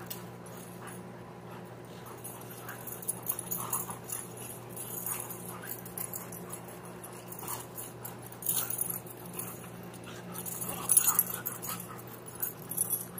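A husky and a black-and-tan Rottweiler–Doberman mix play-wrestling, the dogs making short noises scattered throughout, over a steady low hum.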